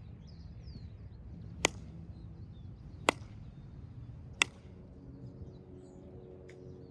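Three sharp, short cracks about a second and a half apart, with faint bird chirps behind.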